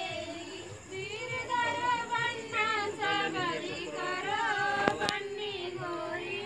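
Women's voices singing together, an unaccompanied wavering melody with long held notes. A single sharp click is heard about five seconds in.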